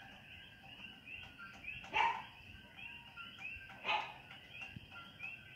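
A dog barks twice, about two seconds apart, over a steady night chorus of coquí frogs calling.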